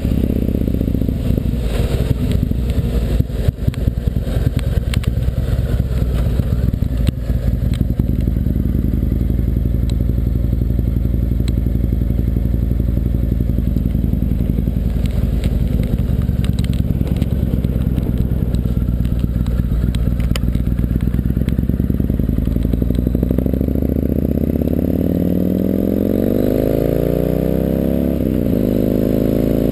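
Yamaha MT-01's 1670 cc V-twin engine running under way, heard through a GoPro chest mount with a wind-noise fix, so wind noise is low. A few clicks and rattles come in the first several seconds. From about three-quarters of the way in, the engine note rises in pitch, dips, and rises again as the bike accelerates through the gears.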